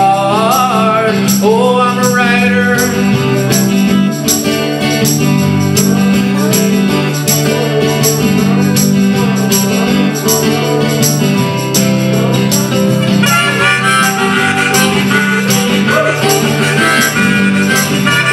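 Live acoustic band playing an instrumental passage: steadily strummed acoustic guitars over sustained chords, with a higher lead melody coming in about thirteen seconds in.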